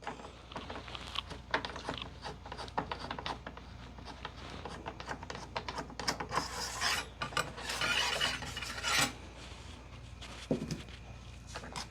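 Steel cleaning rod of a Finnish M39 Mosin-Nagant rifle being worked loose and drawn out of its channel in the stock: a run of metal-on-wood scraping and rubbing with small clicks, heaviest about six to nine seconds in.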